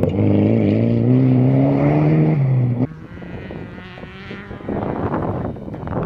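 Rally-prepared Mitsubishi Galant VR4's turbocharged four-cylinder engine under hard acceleration, its pitch climbing, then dropping briefly before the loud note cuts off abruptly just under three seconds in. After that the engine is heard quieter and from further away, rising again near the end.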